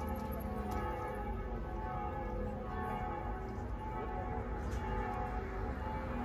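Church bells ringing, several bells sounding together in overlapping, sustained tones.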